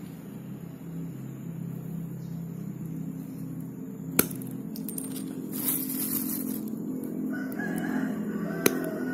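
Combination pliers snapping through steel nails: two sharp cracks about four and a half seconds apart. Chickens and a rooster call in the background, with a higher crowing call near the end.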